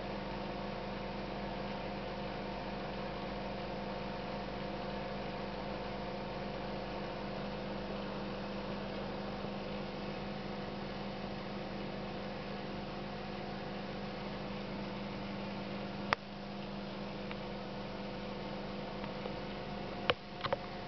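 Steady hum with several tones, like mains-powered equipment running, broken by a sharp click about sixteen seconds in and a few more clicks near the end.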